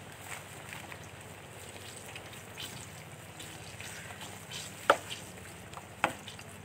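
Banana fritters deep-frying in a large wok of hot oil: a steady sizzle with small crackles, and two sharp pops about a second apart near the end.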